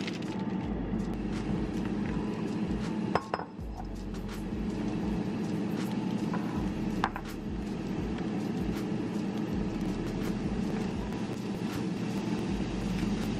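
Kitchen prep sounds: clinks and knocks of dishes and utensils, with a sharp knock about three seconds in and another a few seconds later, then light, quick taps of a knife slicing snap peas on a plastic cutting board, all over a steady low hum.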